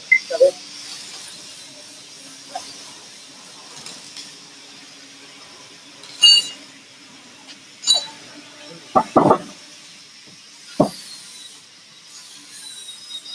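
Factory workshop noise: a steady machine hum underneath, with two sharp ringing metallic clinks and then a few heavier knocks in the second half.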